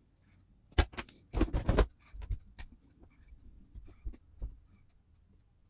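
Close handling sounds of a small die-cast metal toy truck and a marker: a quick cluster of sharp clicks and knocks about a second in, then faint ticking and scratching as the marker tip works on the truck.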